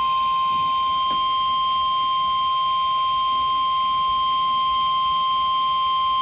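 Emergency alert tone, the single steady tone (about 1050 Hz) used by NOAA Weather Radio as its warning alarm, held unbroken at an even level. It signals that a warning message is about to be broadcast.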